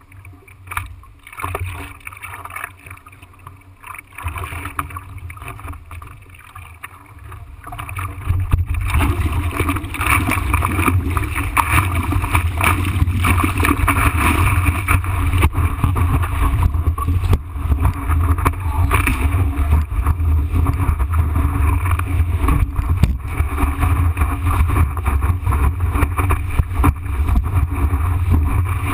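Seawater lapping and splashing against a surfboard, then from about eight seconds in a loud, steady rush of water and wind buffeting as the board is paddled into a wave and rides it.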